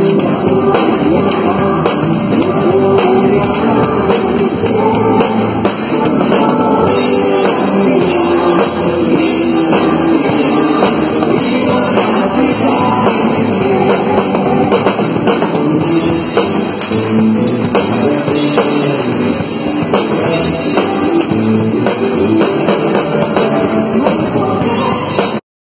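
Live band music played loud, with a drum kit up front, electric guitar and singing. The sound cuts off abruptly near the end.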